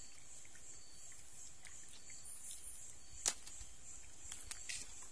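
Steady, high-pitched chorus of night insects. A single sharp click sounds about three seconds in, with a few lighter clicks near the end.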